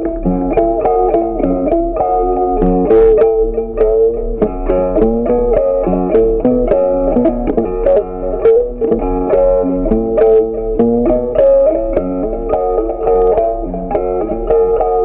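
Background music: a plucked guitar tune with many quickly picked notes.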